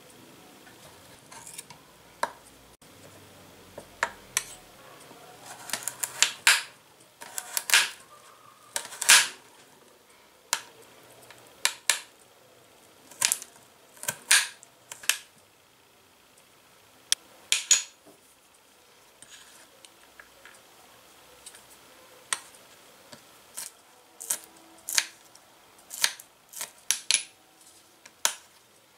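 Small knife chopping carrot on a glass cutting board: irregular sharp clicks of the blade striking the glass, some in quick runs and a few louder taps.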